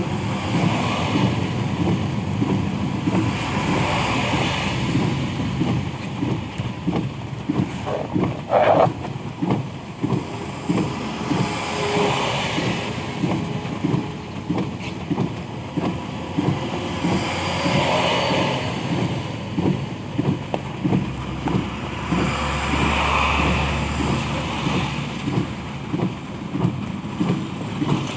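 Road traffic on a wet road in the rain: vehicles passing one after another, tyre hiss swelling and fading every few seconds over a constant fast low rattle. There is a short sharp knock about nine seconds in, and a heavier low engine rumble passes later.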